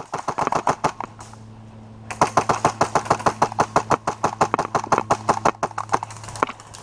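Airsoft rifle fire: a short full-auto burst in the first second, then a long rapid burst of evenly spaced shots from about two seconds in to near the end, with a steady hum under it.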